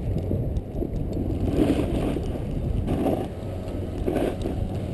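Snowboard sliding over snow with wind buffeting the microphone: a steady low rushing that swells and eases a few times.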